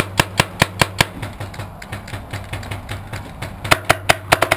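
Paintball markers firing: a quick string of sharp shots in the first second, a few scattered shots, then a fast burst of about ten shots starting nearly four seconds in. A steady low hum runs underneath.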